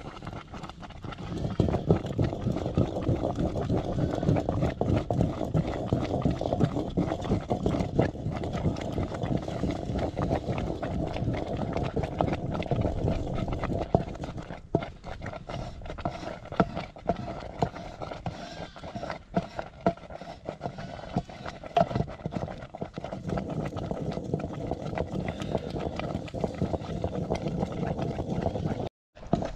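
Livestock hooves clattering and shuffling over the ground: a dense run of small knocks, busiest in the first half and thinner later, cut off abruptly for a moment near the end.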